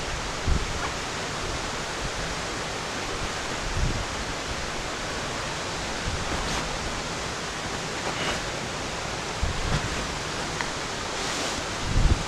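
Steady rushing of the Agur waterfall and its river, with a few brief low thumps.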